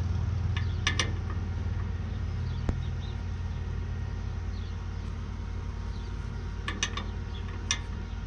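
Steady low hum of an idling engine, with a few short metallic clicks and taps scattered through it.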